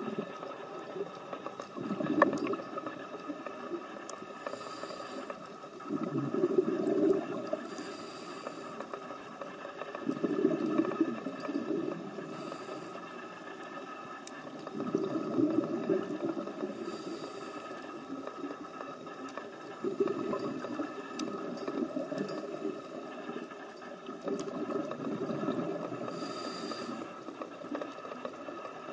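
Scuba diver breathing through a regulator underwater: a burst of exhaled bubbles about every four to five seconds, with short hisses of inhalation between them.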